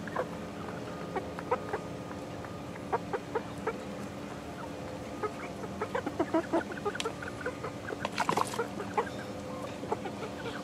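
A mixed flock of 11-week-old chickens clucking and chirping in short, scattered calls, with small clicks among them, over a steady low hum. A brief rustling burst comes about eight seconds in.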